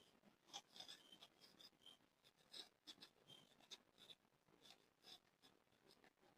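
Faint, irregular crackling and crunching of hard, gritty black mud being crumbled, many small crackles a second, thin and distant through a microphone that had fallen into water.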